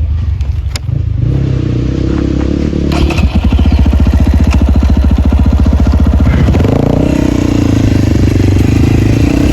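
Two-stroke 250 cc dirt bike with its dB killer removed, coming closer under throttle. About three seconds in the engine grows loud with a fast, even firing beat, and its pitch rises a little past the middle.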